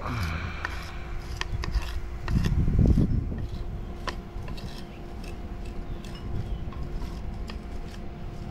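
Scratching and rubbing of a hand-held marker or pencil drawn along the surface of a marble paver, with scattered small clicks. A loud low rumble comes about two and a half seconds in, and a faint steady hum runs underneath.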